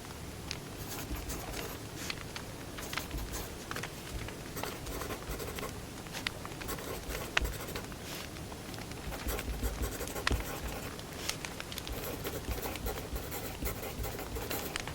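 Firewood burning in a fire, crackling with many small sharp pops and a few louder ones, over pencil writing on paper.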